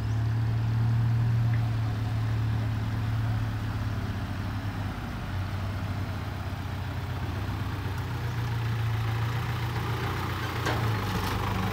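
Loaded dump truck's Hino J07C diesel engine idling at low revs, a steady low drone, with a single light click near the end.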